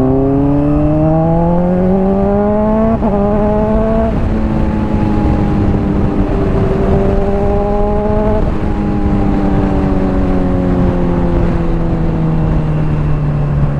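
Honda CBR600RR's inline-four engine through a slip-on exhaust, pulling up through the gears with two quick shifts in the first four seconds. It then holds a steady cruise, drops in pitch around eight seconds and slowly winds down as the bike slows, with steady wind rush on the helmet.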